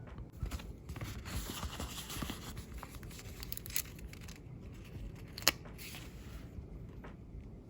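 Paper rustling as sticker sheets and planner pages are handled and peeled, with one sharp click about five and a half seconds in.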